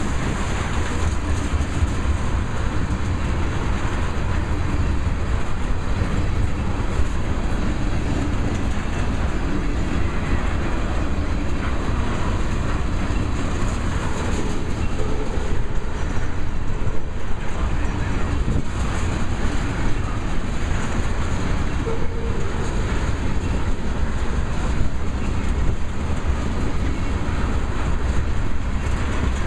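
Tank cars of a freight train rolling steadily past: a continuous rumble of steel wheels on the rails, with occasional clacks.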